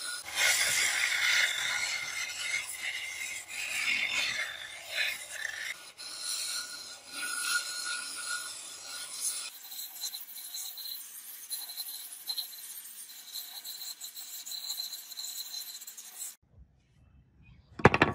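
Wooden axe handle being shaped on a bench belt sander: a continuous gritty rasp of wood against the running abrasive belt that swells and eases as the handle is pressed and moved. The sanding stops about two seconds before the end, and after a brief pause there is one sharp knock.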